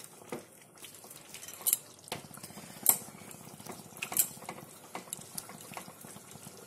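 A spatula scraping and clinking against a pan at irregular intervals as chunks of onion are stirred into a thick chicken curry. The sound is fairly quiet, with a few sharper clinks standing out.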